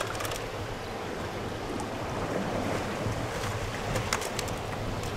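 Sea washing steadily against the shore rocks, with wind buffeting the microphone. A few faint clicks come through, a cluster of them about three and a half to four seconds in.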